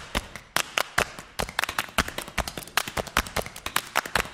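A fast, uneven run of sharp clicks and taps, several a second.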